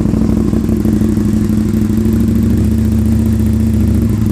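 Aprilia RSV 1000R's 60-degree V-twin idling steadily and loud through Mivv Oval Carbon slip-on exhausts with the dB killers removed.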